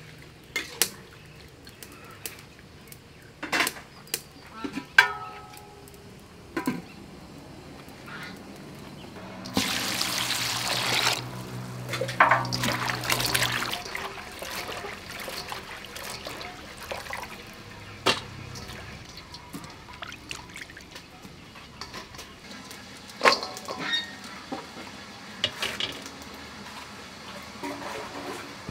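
Water poured into a stainless steel bowl, then sloshing as leafy greens are washed by hand in it. Scattered sharp clinks and knocks come through, and the pour is loudest a little after the first third.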